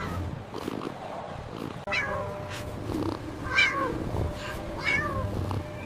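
A cat meowing three times, each meow a short call that falls in pitch.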